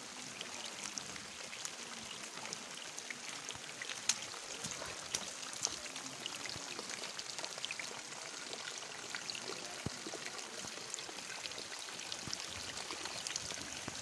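Rain falling steadily: an even hiss with many separate drop hits ticking through it.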